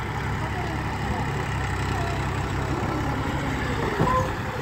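Massey Ferguson 241 DI tractor's three-cylinder diesel engine idling steadily, with a brief louder sound about four seconds in.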